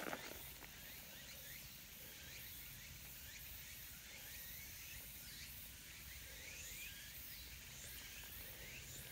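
Quiet outdoor ambience: faint, short high chirps come again and again through the whole stretch, over a low steady rumble.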